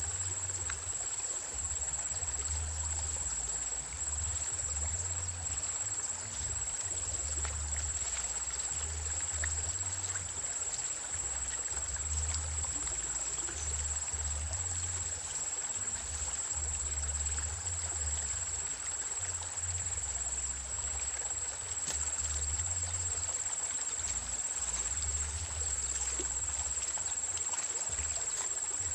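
Small river running as a steady water hiss, with a constant thin high-pitched tone over it and uneven low rumbling on the microphone.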